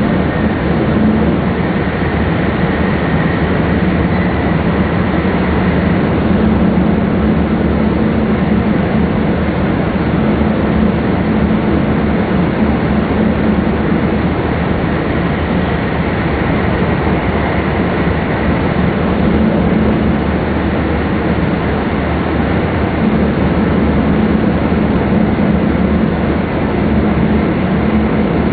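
Steady running noise inside a Jōetsu Shinkansen MAX double-decker train cruising on the line, heard from the upper deck: a continuous rumble with a low hum and no breaks.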